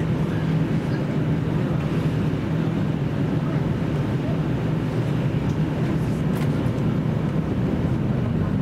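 Running noise of a JR Central KiHa 75 diesel railcar heard inside the passenger cabin: a steady low diesel engine drone mixed with wheel and rail rumble.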